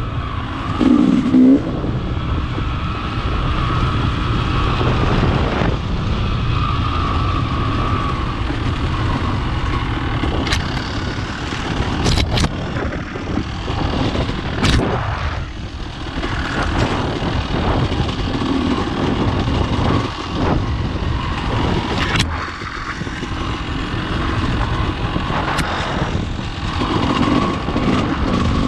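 Dirt bike engine running at trail speed, its note swelling and easing with the throttle. Several sharp knocks from the bike crossing the rough trail break in around the middle.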